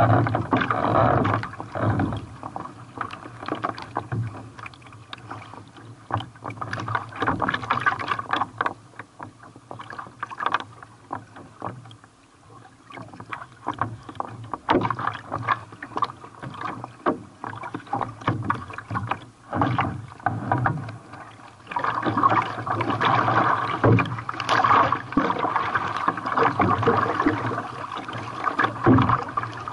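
Sea water splashing and rushing around a carbon kayak in breaking surf, with many sharp splashes. About three-quarters of the way through, the rush of water turns louder and steadier.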